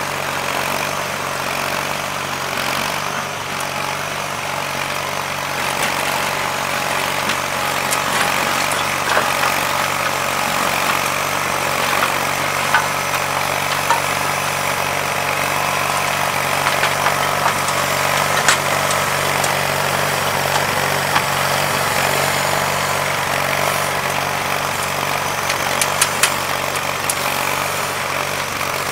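John Deere 316 garden tractor's Onan B43 flat-twin engine running steadily under load, driving a rear-mounted tiller whose tines churn through sod. A few short sharp clicks now and then.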